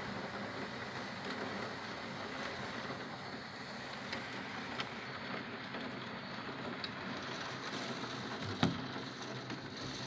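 Steady hiss of heavy rain, heard through window glass, with a few light ticks of drops striking the pane and a single short thump about eight and a half seconds in.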